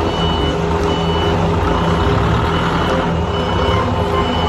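Forklift engine running steadily while its reversing alarm beeps, short high-pitched beeps repeating a little under once a second.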